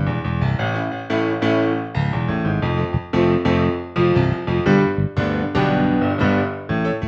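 Background music: a piano playing a melody with chords.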